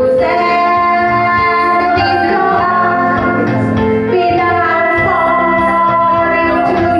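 A woman singing into a corded handheld microphone over backing music, holding long notes.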